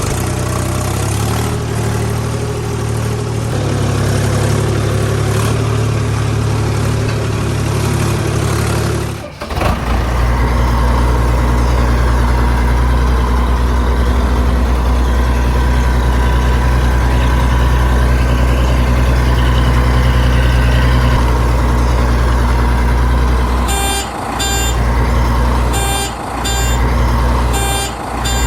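Tractor engine sound running steadily, switching abruptly to a deeper, heavier engine about nine seconds in. Near the end, three pairs of short high beeps sound over it.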